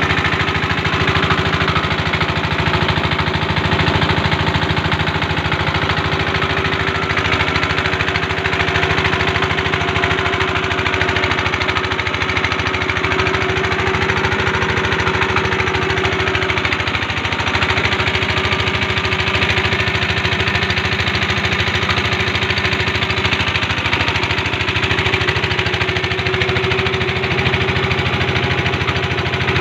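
Small four-stroke single-cylinder general-purpose petrol engine, mounted inboard in a plastic-drum boat, running steadily.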